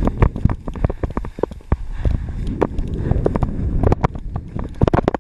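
Wind buffeting the microphone during a fast run down slushy snow, with the scrape of edges cutting through the snow and many irregular sharp knocks and clatters.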